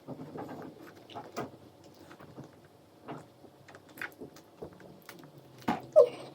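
A child eating octopus up close: soft chewing and mouth noises with scattered light clicks and taps, and a louder sharp sound near the end.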